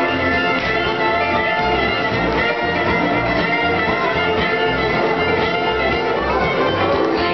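Live contra dance band playing a dance tune: fiddle over guitar, with a steady low beat of about two a second.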